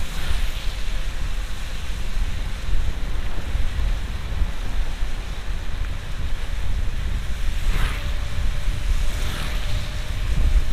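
Car driving on a wet road in the rain, heard from inside the cabin: a steady low rumble of tyres and rain-soaked road noise. Two brief hissing swells come near the end.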